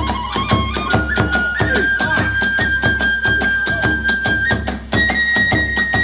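Kagura hayashi music: a bamboo flute holds long high notes, stepping up in pitch about a second in and again near five seconds in, over fast, steady beating of drum and small hand cymbals.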